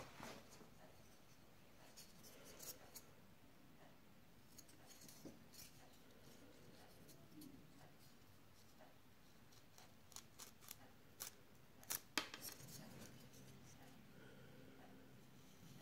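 Near silence broken by faint, scattered clicks and scrapes as a carving knife and a basswood block are handled and the blade cuts into the wood. The loudest click comes near the end.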